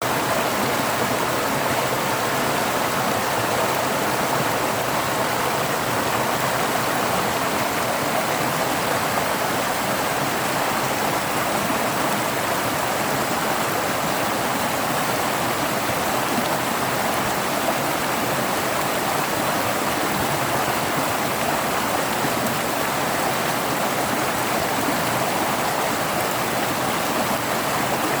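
Mountain valley stream rushing over rocks, a steady, even rush of flowing water.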